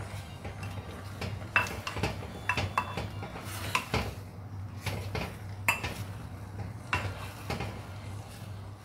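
Orange plastic cooking spoon stirring spinach in a black clay pot of boiling water, knocking and scraping against the pot at irregular intervals, over a steady low hum.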